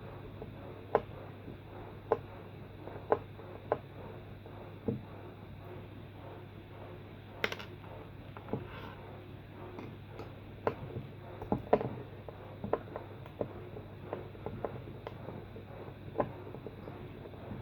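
Irregular small clicks and taps of hard plastic pump parts and hand tools being handled while an Eheim 400 air pump is taken apart, over a steady low hum.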